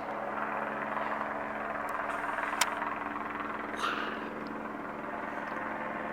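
Police helicopter circling overhead: a steady engine and rotor drone, with a sharp click about two and a half seconds in and a short hiss near four seconds.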